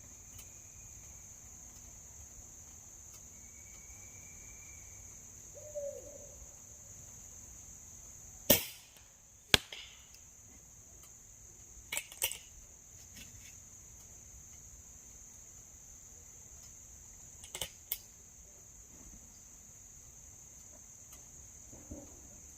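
A Beeman R7 spring-piston air rifle fires once about eight seconds in, the loudest sound here, followed by a sharp click a second later and two more pairs of quick clicks. All of this is over a steady chorus of crickets.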